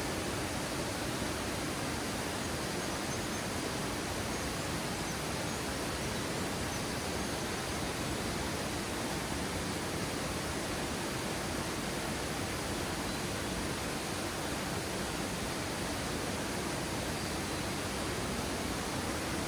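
Steady, even rush of falling water from a small mountain waterfall.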